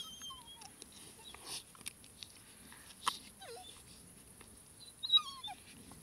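Irish Glen of Imaal Terriers whimpering in short, high whines that fall in pitch, three times, the loudest near the end, while digging a hole together. Short scratchy noises from their paws and noses in the soil come between the whines.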